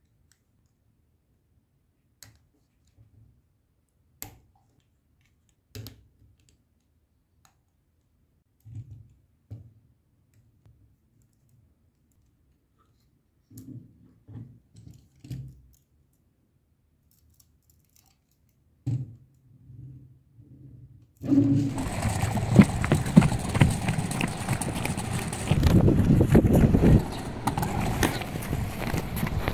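LEGO Technic pieces being handled and pressed together: sparse small plastic clicks and knocks with silence between. About 21 seconds in, a much louder continuous rough clatter on composite plank decking starts abruptly, as the small LEGO bike rolls across it.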